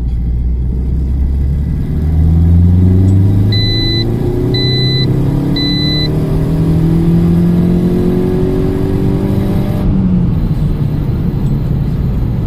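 Turbocharged Saab 9-5 engine heard from inside the cabin under hard acceleration, with its boost-activated exhaust cutout valve open. Its pitch climbs steadily as the revs rise through the gear from about two seconds in until near the end. Three short electronic beeps sound about a second apart partway through.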